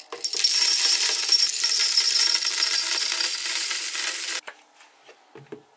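Roasted coffee beans poured from a glass jar into a Happycall blender's clear plastic jar, a dense, steady rattle of beans striking the plastic and each other. It stops abruptly about four seconds in, leaving a few faint knocks.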